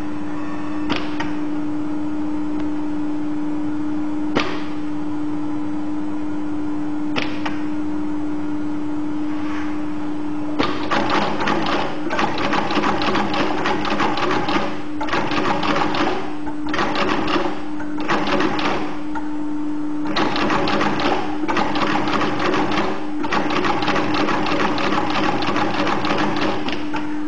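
Industrial lockstitch sewing machine for moccasins: a steady motor hum with a few single clicks, then from about ten seconds in the needle stitching in fast runs, stopping briefly several times.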